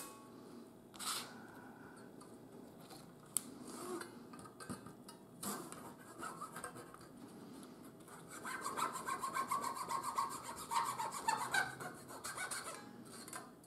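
A fine hobby blade cutting through a thin wooden dowel: scattered scrapes and clicks, then a run of quick back-and-forth rasping strokes from about eight seconds in, lasting around four seconds.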